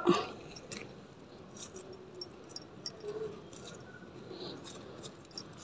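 Faint scattered clicks and rustling of fingers handling chrysanthemum leaves and shoots.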